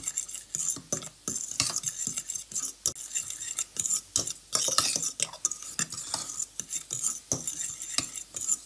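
Metal spoon stirring and scraping crumbs around a pot in quick, irregular scrapes and clicks, as the crumbs are toasted until they turn brown.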